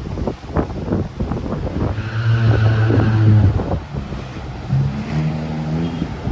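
A motor vehicle's engine running close by, holding one steady note for a second and a half, then picking up again at a higher pitch and stepping up as it revs. Wind buffets the microphone.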